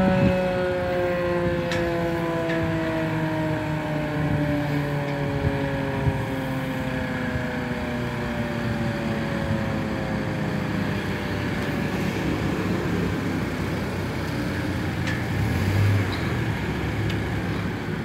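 Outdoor tornado warning siren winding down at the end of its test, its tone sliding slowly lower and fading out over the first ten seconds or so. Road traffic rumbles underneath throughout.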